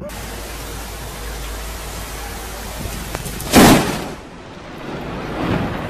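Steady hiss of rain and wind with a low rumble, then one sharp, loud crack of close thunder from a lightning strike about three and a half seconds in, lasting less than half a second.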